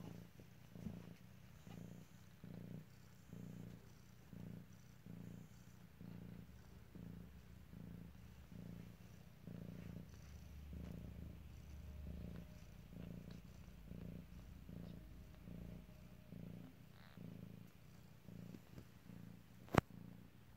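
Somali mother cat purring softly while nursing her newborn kittens, a low purr that pulses in a steady rhythm. A single sharp click comes near the end.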